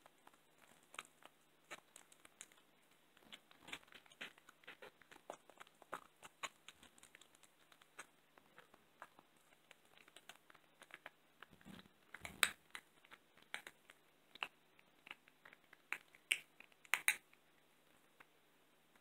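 A cat chewing a raw Cornish hen leg, crunching through the bone in irregular bites and clicks, with louder crunches about twelve seconds in and again near the end.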